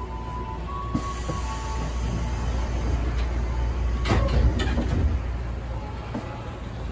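Interior of an ex-Tokyo Metro 6000 series electric train car running: a steady low rumble that grows gradually louder, with a few sharp clacks about four seconds in.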